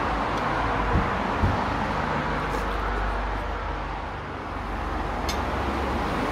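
Steady background hum of road traffic. A couple of soft low thumps come about a second in.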